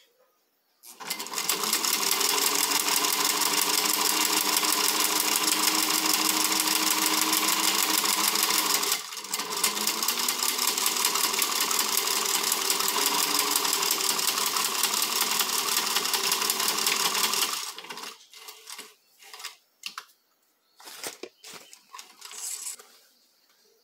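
Singer 15C straight-stitch sewing machine running steadily as it stitches a seam through thin fabric. It stops briefly about nine seconds in and starts again, then halts for good. A few short clicks and knocks follow as the work is handled.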